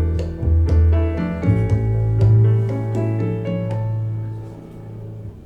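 Piano chords over a held bass note: the closing bars of a vocal ballad with no singing, played back through a hi-fi bookshelf speaker. The music slowly fades toward the end.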